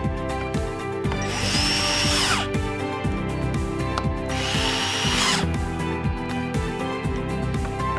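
Background music with a steady beat and held chords. Twice, a whirring, buzzy stretch about a second long rises over it.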